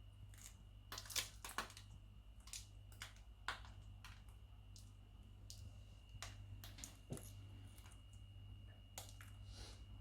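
Indian ringneck parrot nibbling broccoli with its beak: faint, irregular small crunches and clicks, sometimes several close together. A faint steady high tone and a low hum run underneath.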